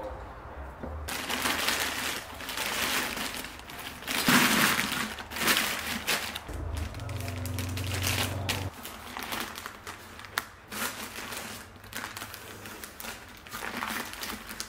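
Wrapping material crinkling and rustling in irregular bursts as it is handled and pressed around a vase, masking it off for spray painting.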